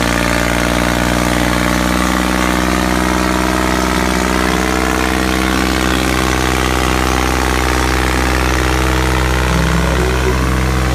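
Diesel tractor engines running at steady, unchanging revs with a constant low drone, pulling against each other on a taut tow rope in a tractor tug of war.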